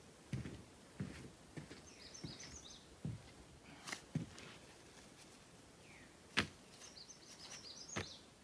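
Footsteps thudding on a plywood tent platform built on a wooden frame, with a few sharp knocks, the loudest about six seconds in. A bird sings a short chirping phrase twice, about two seconds in and again near the end.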